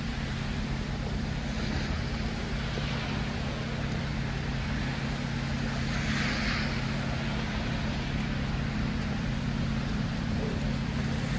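City street traffic on a snowy road: a steady rumble of vehicles, with a louder hiss of a passing vehicle swelling about six seconds in.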